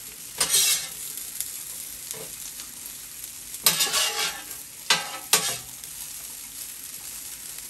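Fried rice sizzling on a hot steel flat-top griddle while two metal spatulas scrape and clatter on the steel as it is chopped and stirred. The sharpest scrapes come about half a second in, around four seconds, and twice near five seconds.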